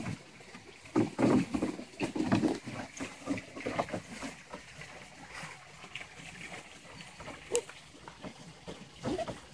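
Cairn terrier wading in a plastic kiddie pool, sloshing water and snuffling as it feels for its sunken bone. The louder bursts come between about one and two and a half seconds in; after that it goes quieter, with one sharp click later on.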